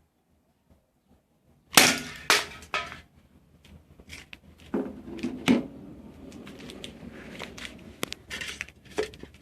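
CO2 airsoft revolver fires a sharp shot about two seconds in, with two quick knocks close behind. Scattered clicks and knocks of handling follow.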